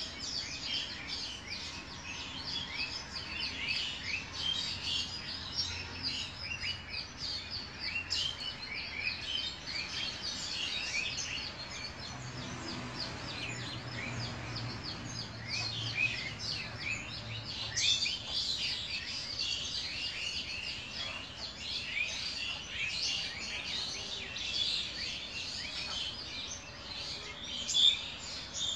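Many small birds chirping continuously in rapid, high, short chirps, with a brief sharp sound near the end.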